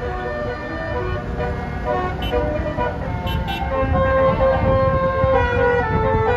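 A bus's Basuri telolet horn playing a tune of changing notes, with longer held notes in the second half, over the low rumble of engine and road traffic.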